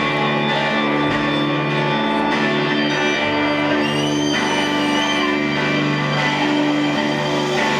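Rock band playing live, with electric guitars sustaining chords in the instrumental opening of a song, before the vocals come in.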